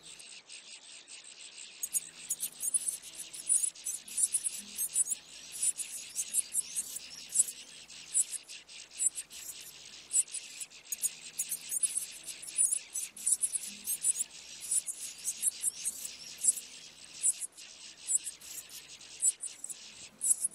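Double-collared seedeater nestlings begging while being fed: a rapid, high-pitched chatter of short cheeps that comes in rushes, thickening and thinning.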